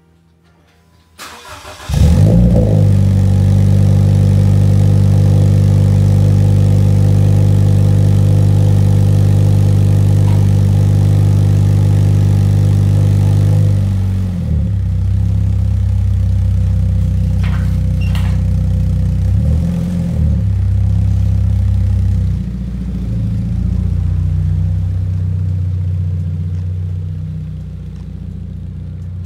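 Car engine cranked and started through a freshly installed aftermarket exhaust with new mufflers, resonator and mid pipe. It catches about two seconds in and runs loud and steady at a fast idle, then drops to a lower, quieter idle about halfway through, with one brief rise and fall in between.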